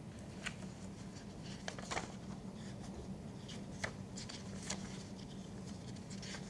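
Sheets of paper being handled and shuffled on a desk: faint, scattered rustles and light taps over a steady low hum.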